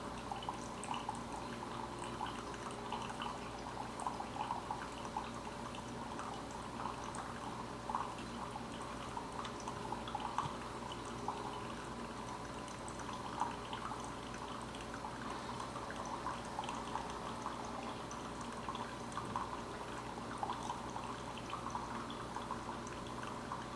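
Single-serve coffee maker brewing a K-cup: its water pump hums steadily while hot coffee trickles and drips into the cup with small irregular gurgles and pops.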